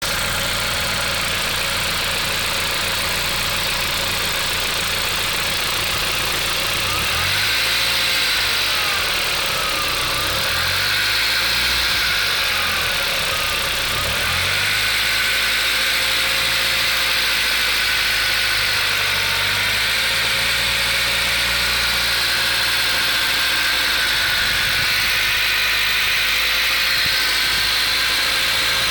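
VW Golf IV 1.8T (AGU) turbocharged four-cylinder engine idling, revved briefly three times, with a clatter from under the valve cover that is heard at idle and grows with revs; the owner suspects the chain linking the camshafts.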